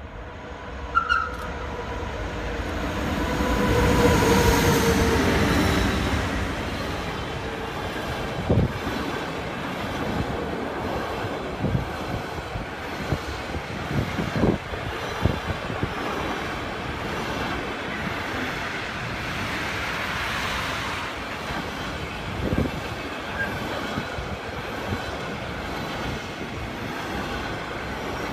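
A train passing on the rails, loudest about four seconds in, then a long steady rumble of wheels going by with occasional sharp knocks.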